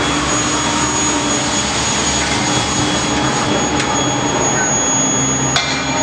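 A 300 kW medium-frequency induction heating furnace running: a steady machine hum and noise with thin, steady high-pitched whine tones over it. A single sharp click comes about five and a half seconds in.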